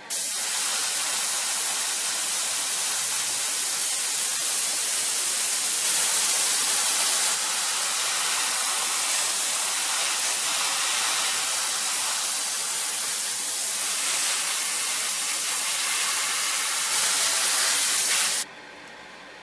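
Airbrush spraying paint: a steady hiss of air from the nozzle while the trigger is held, cutting off suddenly near the end.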